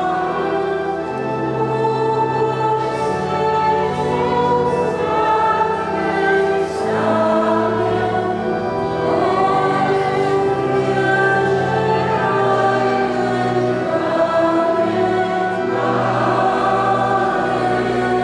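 A church hymn sung by many voices, the notes held and changing every second or two over long sustained low notes of an organ accompaniment, for the entrance procession at the start of Mass.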